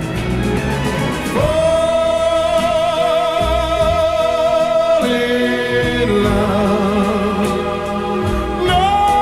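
Music: a pop ballad with a singing voice holding one long note with vibrato, then moving to lower held notes over band accompaniment.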